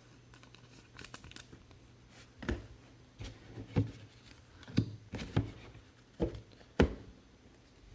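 Hands handling trading cards and packs on a tabletop: faint taps at first, then about eight soft thumps and knocks over the last five seconds.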